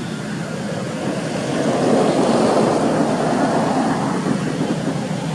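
A passing motor vehicle: its noise grows louder about two seconds in and fades again near the end, over a steady low hum.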